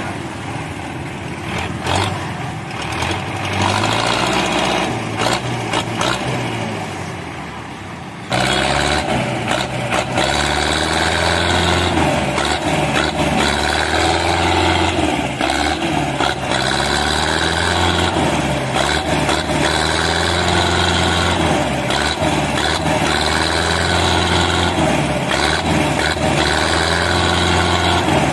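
Belarus tractor's diesel engine working hard against the drag of a trailer piled high with sugarcane in soft mud. The revs rise and fall over and over, about every two seconds, after the engine abruptly gets louder about eight seconds in.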